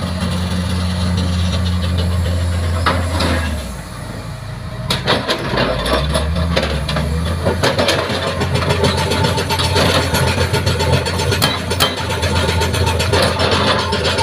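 Excavator diesel engine running steadily. The engine drops off briefly about four seconds in. From about five seconds in, a dense run of sharp cracks and knocks sounds over the engine, as the hydraulic crusher bucket's jaw breaks up concrete or stone.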